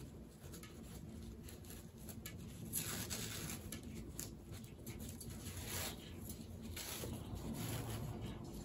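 Scratchy rustling and small irregular clicks of plant packaging being handled, with a louder crinkly stretch about three seconds in and another near six seconds.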